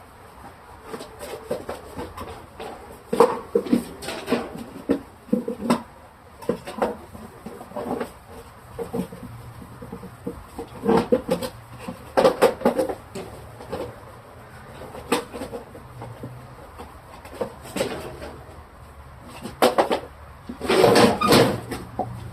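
Irregular series of short knocks, rubs and squeaks, in clusters a few seconds apart, typical of refrigerator shelves and bins being handled and wiped down.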